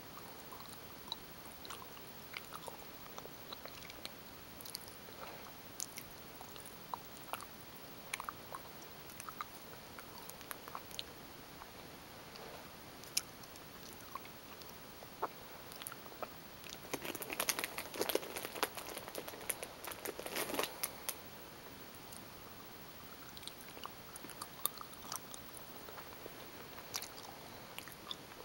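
Gummy bears being chewed: a stream of short, faint mouth clicks and smacks, with a louder, busier stretch of chewing about two-thirds of the way through.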